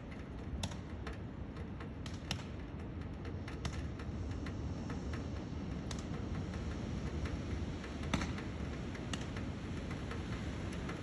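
Steady wind noise with light ticks and taps scattered at irregular intervals, one a little louder about eight seconds in.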